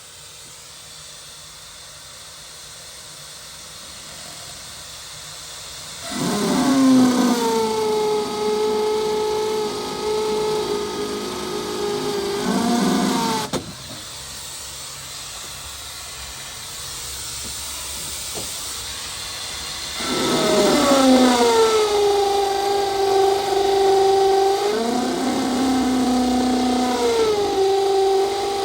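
Electric power tool motor running in two spells of several seconds, each dropping in pitch as it starts and then holding steady, with a dip partway through as if it takes load.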